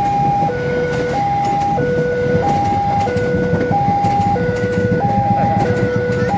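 Level crossing warning alarm sounding a steady two-tone alternation, high and low tones of about two-thirds of a second each, over a continuous rumble of road traffic.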